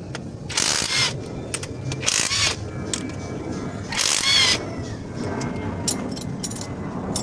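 Hand tools at work on the rocker arm assembly of an Isuzu 4HG1 diesel engine: scattered sharp metal clicks and three short, loud bursts about a second and a half apart, over a steady low hum.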